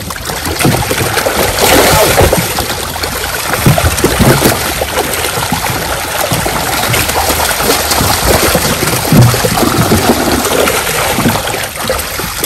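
A mass of netted fish thrashing and splashing in shallow water, a continuous churning splash with many small slaps.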